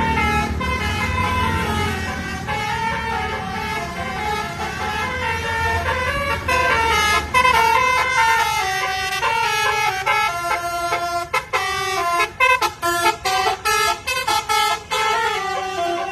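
A bus's 'telolet basuri' musical horn playing a melody of changing notes over the low sound of the engine running. After about ten seconds the notes come short and choppy, with brief gaps between them.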